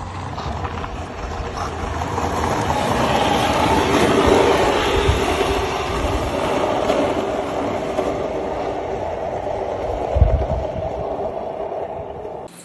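Skateboard wheels rolling on asphalt: a steady rumble that swells to its loudest about four seconds in, with a low thump about ten seconds in.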